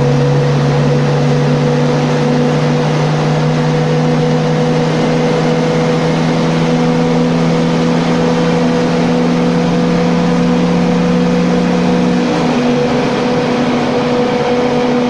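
VAZ 2103 1.5-litre inline-four engine, detuned with double head gaskets, pulling under load on a chassis dyno: its note climbs slowly and steadily as the revs rise, then the climb ends about twelve seconds in and the engine carries on at a slightly lower level. A steady hum runs underneath throughout.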